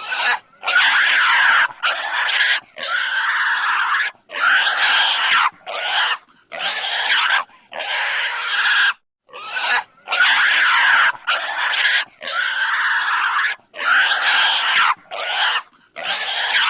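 An animal giving a long series of harsh, raspy calls, each about a second long, with short breaks between them.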